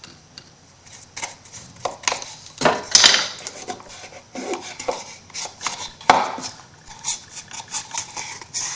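Scrapbook paper and small metal craft tools handled on a wooden box and tabletop: irregular taps, clicks and short scrapes, with sharper knocks about three and six seconds in, as the paper is trimmed and pressed down.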